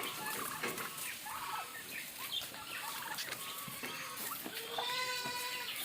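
Farm animals calling: several short calls, then one long, steady call near the end.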